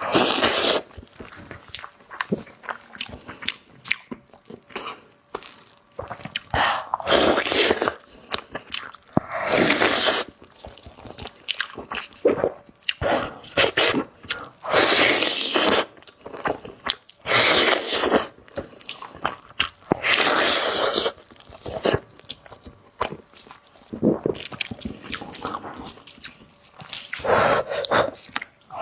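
Close-miked mukbang eating of braised pork knuckle: biting and chewing in repeated bursts a second or two long, every couple of seconds.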